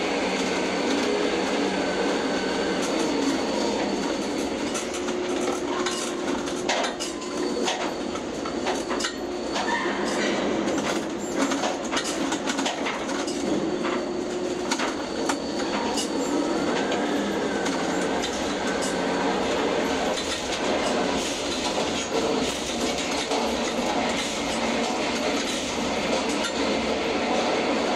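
Ship-to-shore container crane's trolley and hoist machinery running, heard from inside the operator's cab as the spreader travels out over the ship and is lowered into the hold: a steady mechanical rumble and rattle with many clicks and a few brief squealing tones.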